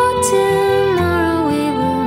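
Background music: a soft, gentle song with sustained chords and a melody stepping downward.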